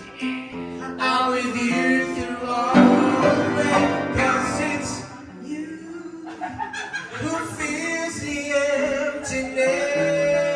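Upright piano playing the accompaniment of a slow song live, with sustained chords and melody notes in a passage between sung lines.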